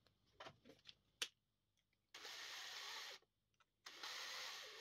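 DeWalt cordless drill-driver running in two short spins of about a second each, driving two small M2x8 screws into a 3D-printed plastic part. A few light clicks of the small parts being handled come before.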